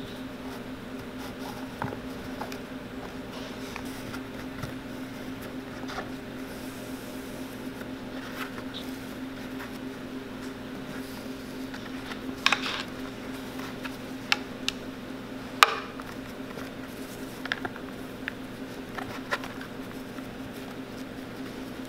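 New flat cotton laces being threaded through the metal eyelets of old leather shoes: soft sliding and rustling with scattered light clicks and taps, the sharpest about twelve and fifteen seconds in, over a steady low hum.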